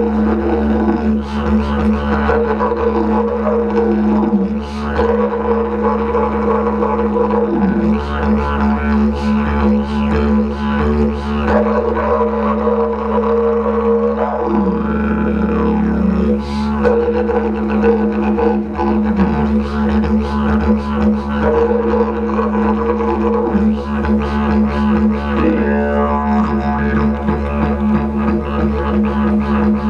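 Didgeridoo playing a continuous low drone. Shifting overtone sweeps and short sharp rhythmic accents ride over it. The drone never breaks, which takes circular breathing.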